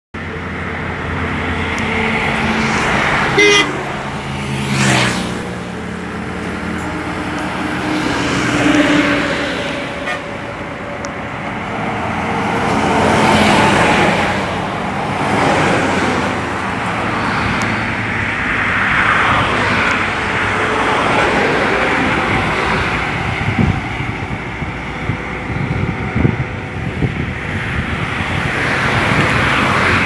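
Highway traffic passing close by: cars and long-distance sleeper coaches going by at speed, their engine and tyre noise swelling and fading with each pass. A short horn toot sounds about three and a half seconds in.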